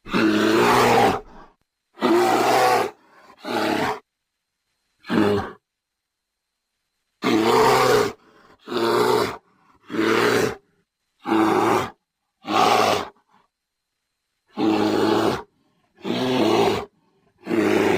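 Bear roaring and growling in about a dozen short, rough calls, each about half a second to a second long. The calls are spliced together with gaps of dead silence between them.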